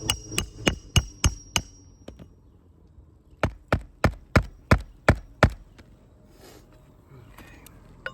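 Hammer driving roofing nails through a replacement asphalt shingle on a roof: two quick runs of blows, about three a second, the second run starting about three and a half seconds in. The early blows have a thin metallic ring.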